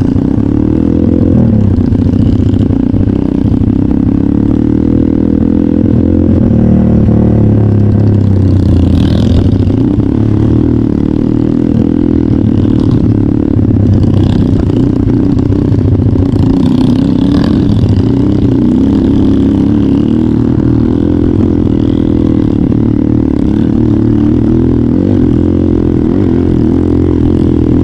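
Trail motorcycle engine running steadily under way, its note wavering slightly with the throttle.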